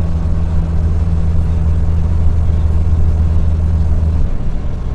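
Heavy truck's diesel engine running under the exhaust brake in a lowered gear, heard from inside the cab: a steady low drone that eases off about four seconds in.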